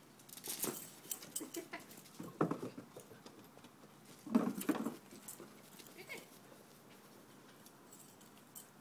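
Two dogs, a Rottweiler–golden retriever cross puppy and a border collie–shepherd cross, playing and making short dog noises in irregular bursts over the first six seconds or so, the loudest just past the middle.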